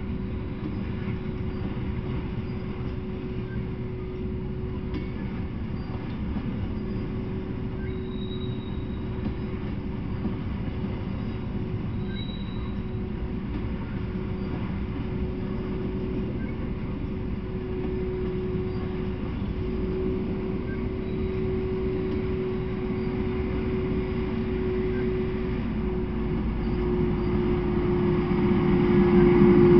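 Freight train of tank cars rolling past steadily: a continuous rumble of wheels on rails with a thin, steady whining tone over it. Over the last few seconds the sound swells as a road vehicle comes close.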